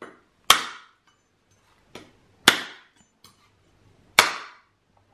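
Large kitchen knife chopping into the top of a trimmed young drinking coconut: three sharp whacks about two seconds apart, with a few lighter knocks between.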